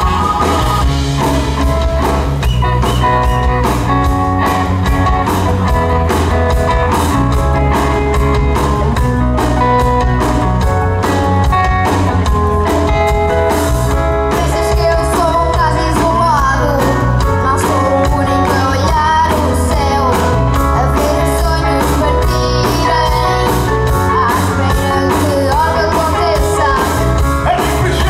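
Live band playing an upbeat song: electric guitars, bass, keyboard and a horn section over a steady beat, with a singer's voice through a microphone.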